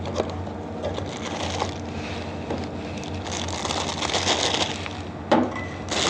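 Packaging bag crinkling and rustling as a small pneumatic valve is unwrapped and pulled out, loudest about halfway through, then a knock near the end as the valve is set down.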